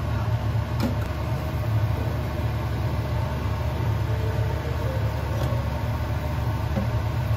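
Steady low hum of a portable induction cooktop running under a pan of simmering sauce, with a light click about a second in.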